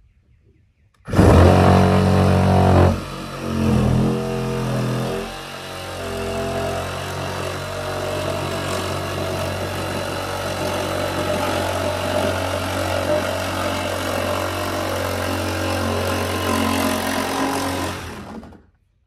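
Reciprocating saw (Sawzall) cutting through a painted wooden wall panel. It starts about a second in, stops and restarts twice in the first few seconds, then runs steadily for about twelve seconds before stopping near the end.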